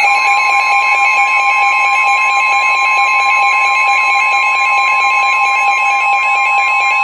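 Weather radio emergency alert tones: several steady high tones layered with a warbling, siren-like sweep that repeats quickly, and another steady tone joins right at the start. The alarm signals an incoming severe weather warning broadcast.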